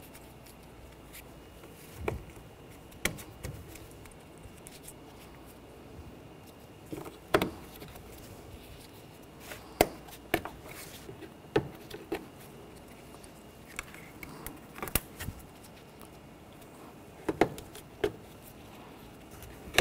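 Plastic push-pin retainers being pressed into a plastic radiator support cover by hand: a series of separate sharp clicks and snaps, one every second or two, with light handling of the plastic panel in between.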